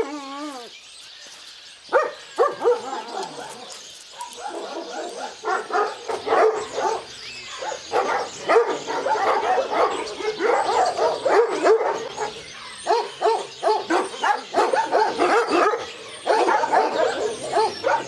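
A pack of dogs and puppies barking together. Many short barks overlap in a dense chorus that starts about two seconds in, with a brief lull near the end.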